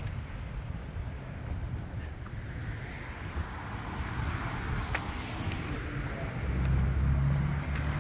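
Road traffic: motor vehicles running nearby as a steady low rumble, with an engine hum growing louder about six and a half seconds in.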